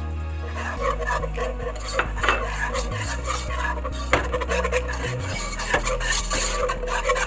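A whisk scraping and clicking against the inside of a coated pot as flour is stirred into melted butter to make a roux, the base of a béchamel. Background music with low bass notes plays underneath.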